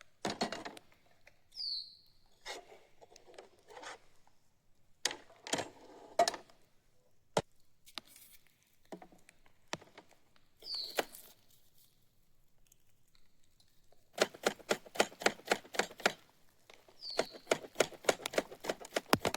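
Scattered sharp clicks and knocks, then two runs of rapid, even clicking about two seconds each, near the end. A short high chirp that drops slightly in pitch comes three times.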